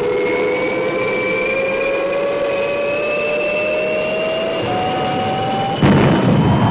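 Science-fiction spacecraft engine sound effect powering up for take-off: a whining tone rising slowly in pitch, then a sudden louder rush of noise about six seconds in.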